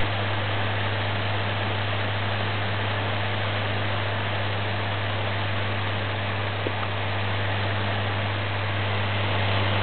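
Electric fan running steadily above the humidifier-mist vortex: an even rush of air with a low, constant motor hum.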